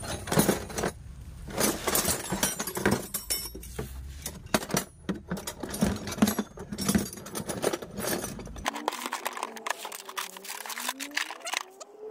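Irregular metallic clicks and clinks of hand tools and parts being handled against the engine, in quick, uneven taps.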